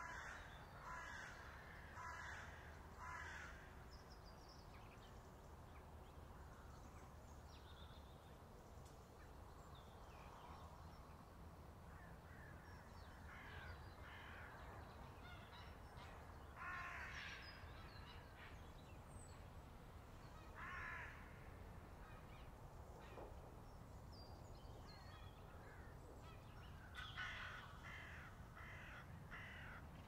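Crows cawing in runs of several harsh calls about a second apart, with a run at the start and another near the end, over a faint steady low hum of outdoor background.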